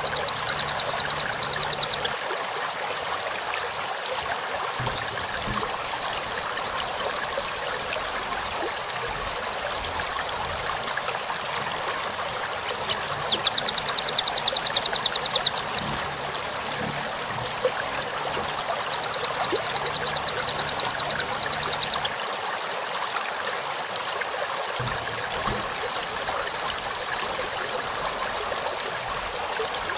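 Nuthatch (rambatan) song: rapid trills of high, sharp repeated notes in bursts of several seconds, with short gaps inside some bursts and pauses between them, over a steady hiss.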